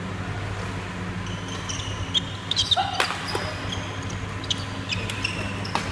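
Badminton rackets hitting the shuttlecock in a doubles rally: sharp cracks, the loudest about three seconds in and near the end, with short high squeaks of shoes on the court floor. A steady low hum runs underneath.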